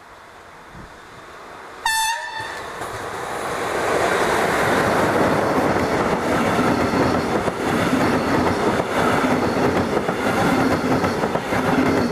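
A train approaching and passing close by: its noise builds, a short horn blast sounds about two seconds in, then the loud rush and rolling of the wheels on the rails continues steadily to the end.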